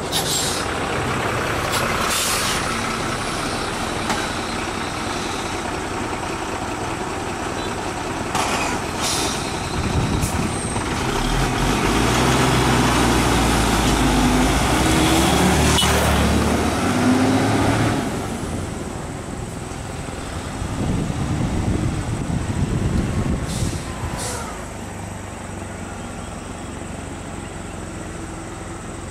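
Road traffic: diesel lorries and other vehicles running and passing close by, loudest with a heavy engine rumble through the middle. Several short hisses, typical of truck air brakes, come in near the start, about nine seconds in and again later.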